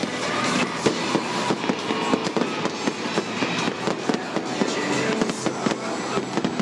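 Stage pyrotechnics crackling and popping, with many sharp cracks a second, over loud music.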